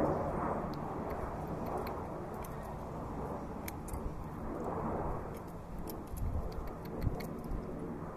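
Steady rumble of road traffic swelling and fading, with scattered light clicks from a common blackbird pecking at food in a ceramic bowl.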